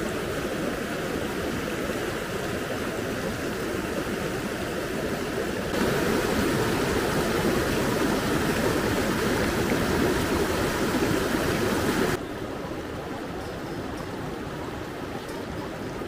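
Rushing mountain stream: a steady rush of water tumbling over rocks. It jumps suddenly louder about six seconds in and drops back just as suddenly about twelve seconds in.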